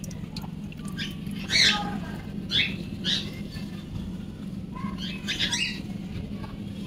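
Short, high animal calls, about five of them in quick succession, over a low steady hum.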